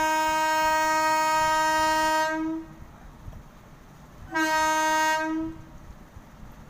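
Two loud blasts of a horn held at one steady pitch: a long one that stops about two and a half seconds in, then a shorter one about four and a half seconds in, each swelling slightly just before it ends.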